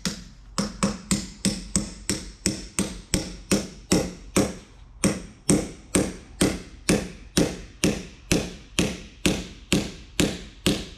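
Steady hammer blows, a little over two a second, driving a bearing onto the end of an Eaton 13-speed auxiliary-section countershaft. Each strike is sharp and rings briefly, steel on steel.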